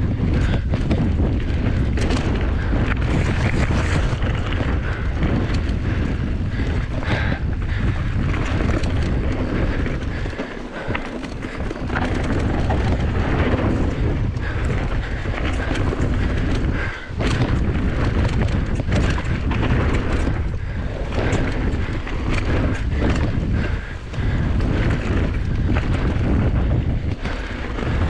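Mountain bike ridden fast down a dirt trail: constant wind rumble on the camera's microphone, with tyres on dirt and the bike knocking and rattling over bumps. The noise dips briefly a few times.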